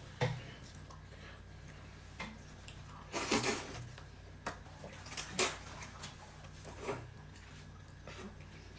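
Irregular soft clicks, taps and rubbing sounds of people eating at a table: chewing and small handling noises, a few separate sounds every second or two, over a faint steady hum.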